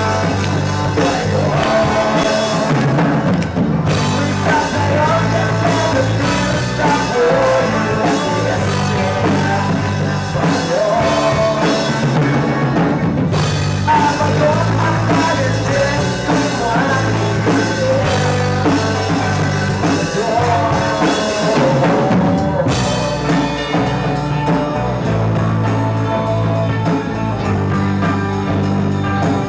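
Rock band playing live: drum kit, bass and guitars with a voice singing a wavering melody. Around three-quarters of the way through the top end drops out for a moment and the band carries on.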